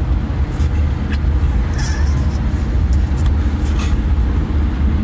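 Steady low rumble of a taxi on the move, heard from inside the cabin: engine and road noise, with a few light clicks.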